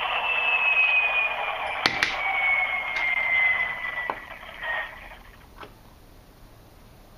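Recorded sound sample of a turbocharged EMD diesel locomotive engine, heard thinly through a phone speaker. A whine falls slowly in pitch as the engine winds down, with a few clicks, and the sound fades out about five seconds in.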